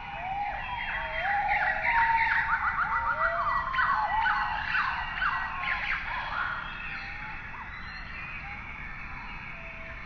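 Many high chirping calls that sweep down in pitch and overlap one another, with a fast run of short repeated chirps about two seconds in. They are loudest in the first half and thin out toward the end.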